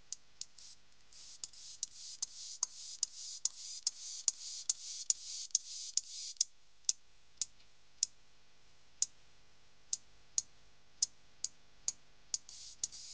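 Grasshopper stridulating: a faint run of sharp, irregular clicks over a high rasping hiss in the first half. The clicks then thin out to about two a second with little hiss, and the rasp comes back near the end.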